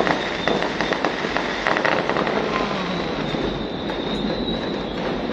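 Distant New Year fireworks: a dense run of sharp cracks and pops over the first two seconds or so, thinning after that, over a continuous rumbling haze of further bursts.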